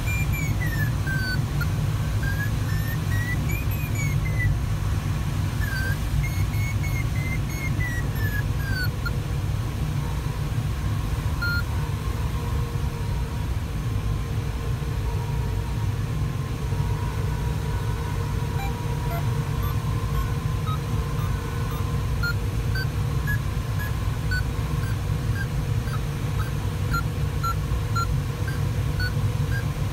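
Steady airflow rush and rumble in a Sparrowhawk ultralight glider's cockpit, with the audio variometer sounding over it: a wavering tone that slides up and down for the first several seconds, then short regular beeps through the second half that signal climbing.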